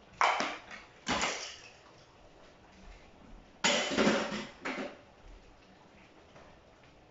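Kitchen utensils and dishes clattering: two sharp knocks of things set down on the counter, then a longer run of clatters in the sink about three and a half seconds in.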